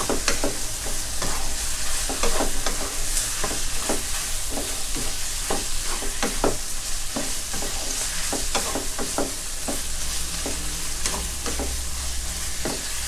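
Pork belly and onions sizzling in a nonstick wok while a wooden spatula stirs them, scraping and knocking against the pan in irregular strokes.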